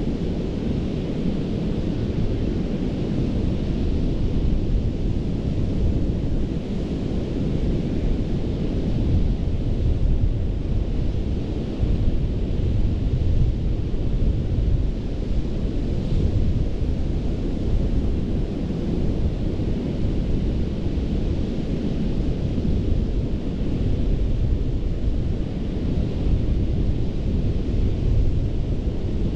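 Ocean surf washing onto a sandy Gulf beach, a steady rumbling wash heaviest in the low end, with wind rumbling on the microphone.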